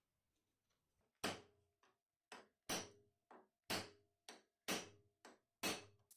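Hammer tapping on a steel tool held against the dividing head's cast-iron flange: about ten blows roughly every half second, alternating lighter and heavier, each with a short metallic ring.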